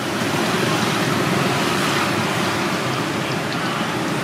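Steady road traffic noise, a continuous wash of passing vehicles, with a faint steady hum underneath.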